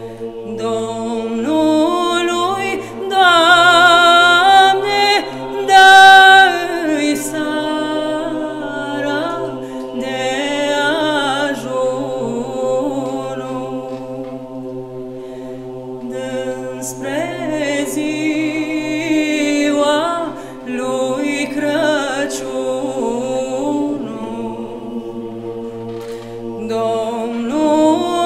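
A cappella choir singing a Romanian Christmas carol (colind), led by a woman soloist whose melody moves in long notes with vibrato over lower voices holding steady notes underneath.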